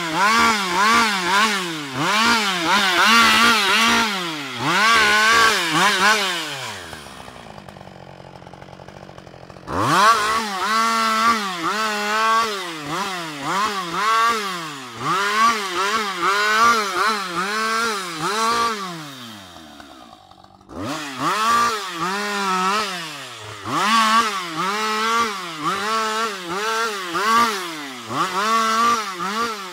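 Husqvarna 560 XP two-stroke chainsaw revving up and down over and over, each rise a short burst of throttle as it cuts branches off a fallen tree. It drops back to a quieter idle for a couple of seconds about seven seconds in, and again briefly around twenty seconds in.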